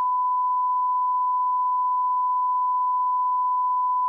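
Broadcast bars-and-tone test tone: one steady, pure beep held at a single pitch without a break, the signal of a channel off the air.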